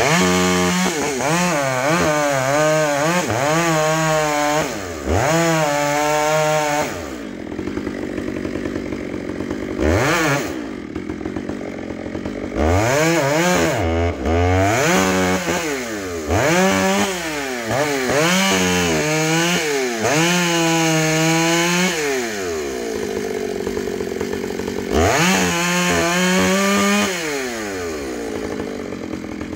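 Chainsaw cutting into the trunk to fell a tree, revved up to full throttle for several long cuts and dropping back to idle between them.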